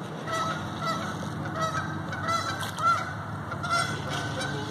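Geese honking: a long run of short, repeated calls.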